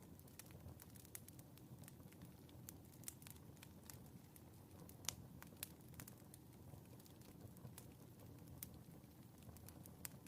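Faint wood fire crackling in a fireplace: scattered sharp pops and snaps over a soft, steady low rumble, with one louder pop about five seconds in.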